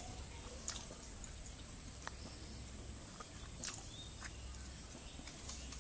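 Faint, scattered clicks and taps of people eating by hand from steel plates and bowls, about five in all, over a steady high hiss and a low hum.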